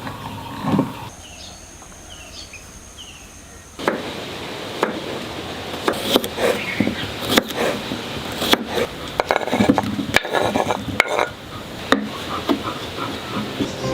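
Dishes, pots and utensils clinking and knocking in quick, irregular strokes, starting about four seconds in after a quieter stretch.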